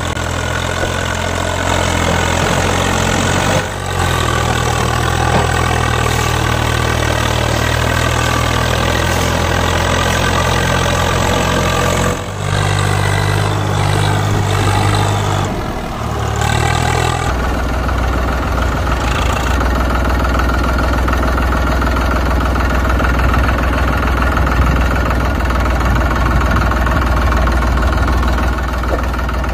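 Tractor engine sound, running steadily at idle, laid over toy tractor footage. Its tone changes abruptly about 4, 12 and 17 seconds in.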